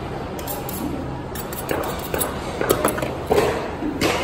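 A knife and utensils clinking and tapping against a steel serving tray as whole fish are worked and cut: a scattering of short, sharp metallic clicks, a few louder than the rest, over a steady background din.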